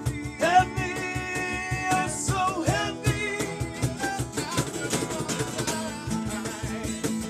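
Live acoustic band music: a singer holds a long sung note and then moves through a sliding vocal line over strummed acoustic guitar keeping a steady rhythm.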